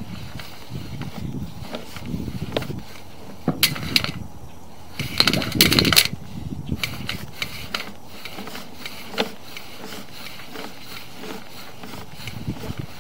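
Sewer inspection camera's push cable being fed down the pipe: irregular clicks, knocks and rattles over a steady hiss, loudest in a clattering cluster about five to six seconds in.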